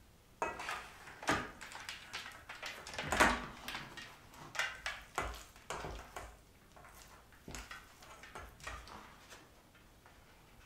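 Wooden spatula scraping and scooping ground sausage meat in a stainless steel bowl, with irregular knocks and clinks against the metal and the rustle of a cloth piping bag being handled. The sounds come in uneven bursts, loudest about three seconds in, and thin out near the end.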